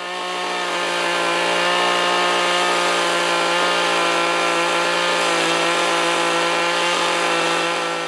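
Echo CS-2511ES small two-stroke top-handle chainsaw held at steady high revs while carving into redwood, one even engine note that swells in over the first second and fades out near the end.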